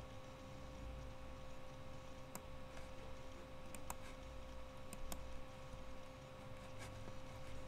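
A few sharp computer-mouse clicks, spaced a second or more apart, over a steady electrical hum and low room rumble.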